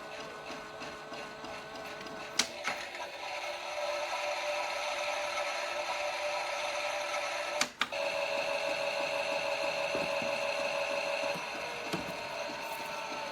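Theo Klein Miele toy washing machine running a wash program: a steady mechanical whirr with electronic tones. Two sharp clicks come about two and a half seconds in and just before eight seconds in, and the tone changes after each.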